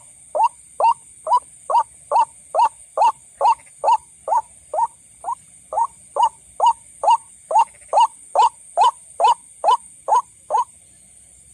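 White-breasted waterhen calling: a long, evenly paced run of short rising notes, a little over two a second, that stops about ten and a half seconds in. A steady high hiss runs underneath.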